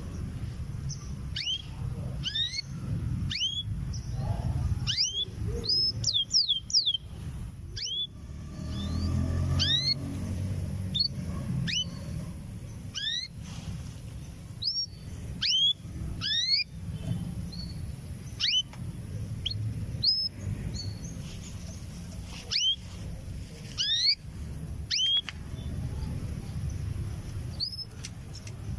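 Canary giving short, separate chirping calls, one or two a second, over a low rumble: the repeated calling of a female canary ready to breed, calling for a male.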